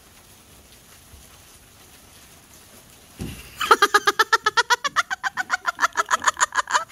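A person laughing hard in a fast cackle of short, high-pitched "hak-hak-hak" bursts, about eight a second, starting about three and a half seconds in after a few seconds of quiet outdoor background.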